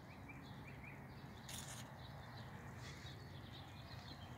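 Faint small-bird chirps, many short calls in quick succession, over a low steady hum, with a brief hiss about a second and a half in.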